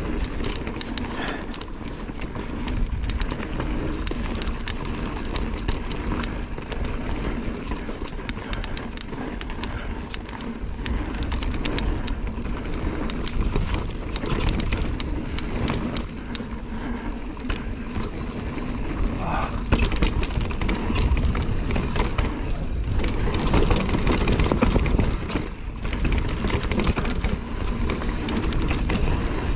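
Mountain bike ridden down a bike-park trail: tyres rolling over dirt, with the bike clattering and rattling over bumps throughout and a steady low rumble underneath.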